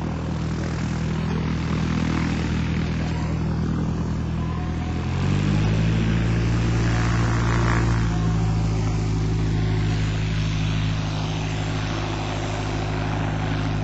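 Stampe SV-4 biplane's piston engine running with its propeller turning, steady at first, then revving up a little higher and louder about five seconds in and holding there.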